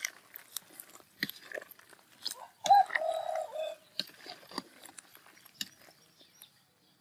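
Metal ladle stirring a pot of soup, knocking lightly against the metal pot in scattered clicks. About three seconds in, an animal call, about a second long, is the loudest sound.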